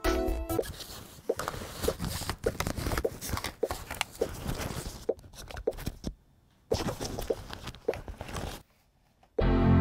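A fabric backpack being packed by hand: nylon rustling, zipper handling and soft knocks as items go into it, with a couple of short pauses. A brief, louder thump comes just before the end.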